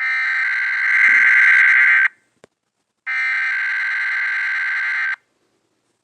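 Emergency Alert System header tones: loud, harsh digital data bursts, each about two seconds long, with about a second of silence between them, twice. There is a tiny click in the gap.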